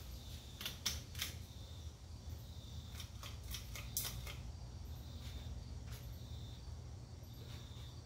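1985 Hunter Original ceiling fan's oil-bath motor running with a steady low hum, with a few scattered sharp clicks on top.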